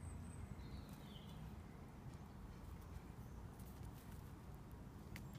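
Rabbits chewing dandelions: a few faint, scattered crunching clicks over a low steady rumble, with a brief faint chirp about a second in.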